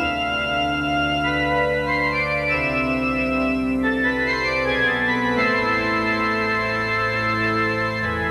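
Organ playing slow held chords, moving to a new chord every second or two.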